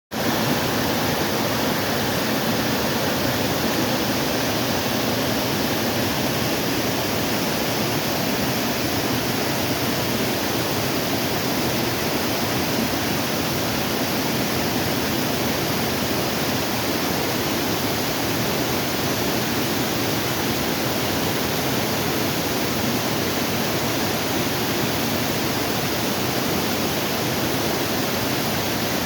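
Small waterfall pouring steadily into a stream: a loud, even rush of falling water with no breaks.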